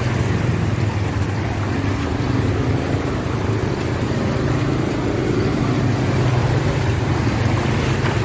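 A motor vehicle's engine running steadily at low revs, over a steady hiss of background noise.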